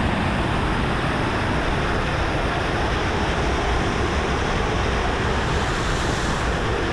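Waterfall in high water: a loud, steady rush of falling water close by.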